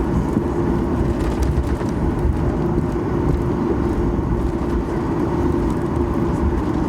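Steady cabin noise of a Boeing 737-800 on the ground, its CFM56-7B engines at idle: a constant hum over a low rumble.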